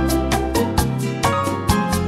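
Instrumental background music with a steady beat, about four beats a second.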